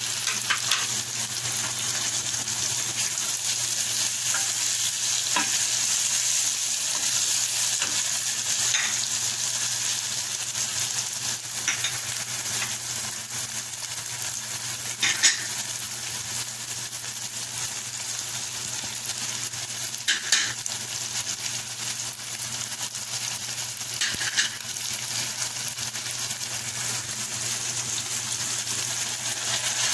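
Chopped onions and tomatoes sizzling steadily in hot oil in a stainless steel pan, stirred with a wooden spatula, with a few brief sharper scrapes along the way.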